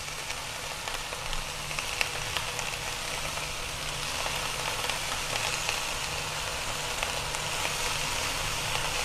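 Beef roast and vegetables sizzling in a stainless steel pot on the stovetop: a steady crackling hiss with faint pops, growing slightly louder, over a low hum.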